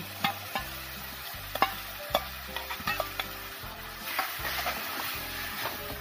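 Grated tomato sizzling as it lands in hot oil and fried spices in a kadhai, while a steel ladle stirs it, clicking and scraping against the pan. The sizzle grows stronger about four seconds in.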